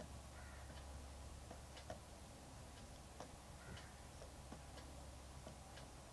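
Near silence, with faint scattered taps of a stylus writing on a tablet over a low steady hum.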